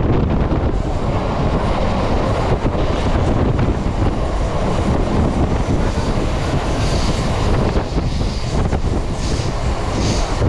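ICF-built Mumbai suburban EMU train running at speed, heard from aboard: a steady rumble of wheels on the track with a rapid clatter of clicks over the rail joints, and wind buffeting the microphone.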